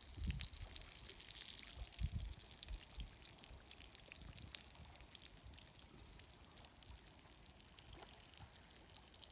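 Small waves lapping and trickling faintly against the stones of a loch shore, with occasional low rumbles on the microphone, strongest about two seconds in.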